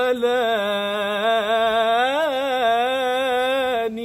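A solo male voice sings an unaccompanied Islamic inshad (devotional song), drawing one syllable out into a long ornamented melisma with a wavering pitch. About two seconds in the line climbs and then falls back, and it breaks off just before the end.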